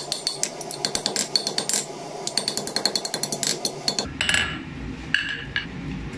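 Hand hammer striking red-hot steel over a steel block on the anvil, a quick run of blows several a second. The hammering stops about four seconds in, followed by a few lighter clinks and a low rumble.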